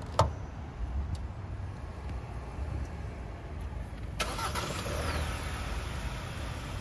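A sharp click just at the start, then the 2022 Hyundai Santa Cruz's 2.5-litre turbocharged engine is started about four seconds in: the starter turns it over, it catches, with a brief falling whine, and it runs on at idle.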